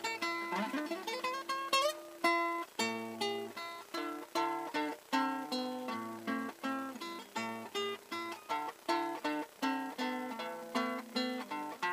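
Solo classical guitar playing a plucked melody over bass notes. Near the start a quick rising run sweeps up in pitch, followed by a steady flow of picked notes.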